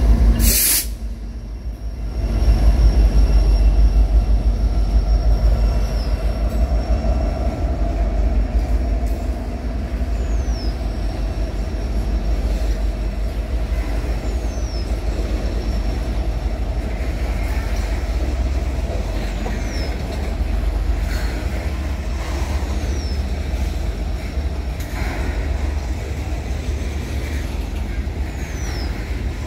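Loaded BNSF coal train rolling past with a steady low rumble of wheels on rail, its SD70ACe distributed-power locomotives running at the rear. A brief sharp burst comes under a second in, followed by a short drop in loudness.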